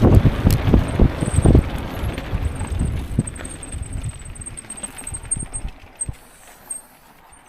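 Wind buffeting the microphone and trail rumble from a mountain bike on the move, dying away over several seconds as the bike slows.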